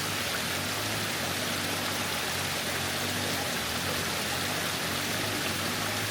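Waterfall rushing, a steady, even hiss of falling water with no breaks.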